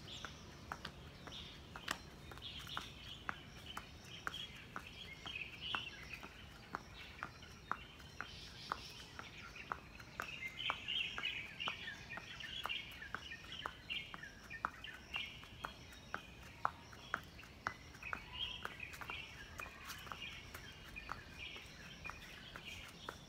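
Sneakers landing and scuffing on paving bricks in a quick, repeated rhythm as a person jumps and steps through an aerobic workout, with birds chirping throughout.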